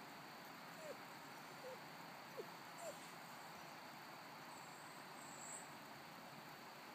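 Near silence: a faint steady hiss, with four short, faint chirps, each a quick falling note, in the first three seconds.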